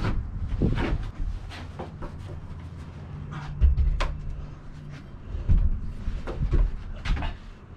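Knocks and thuds of a heavy wooden ridge beam being handled, lifted and shifted against the wall framing, with footsteps on the plywood subfloor. A few heavier thumps stand out, the loudest about four seconds in.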